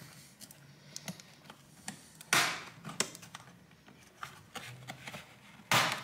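The brittle retaining clips of a Lenovo Ideapad Flex 5 laptop's bottom cover clicking and scraping as the cover is pried loose by hand, with two louder cracks as clips let go, one a couple of seconds in and one near the end.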